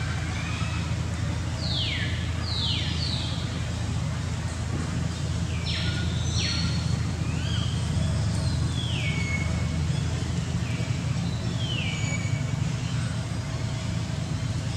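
Short high animal calls, each sliding quickly down in pitch, come in loose groups over a steady low rumble.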